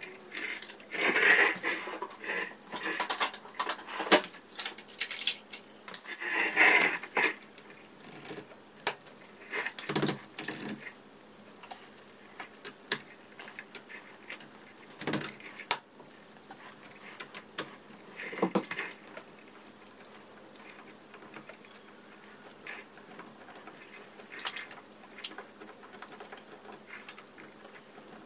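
Socket tools working on a Porsche Macan's front brake caliper bolts: bursts of rapid clicking and sharp metal clinks and knocks, busiest in the first seven seconds, then single knocks spread apart.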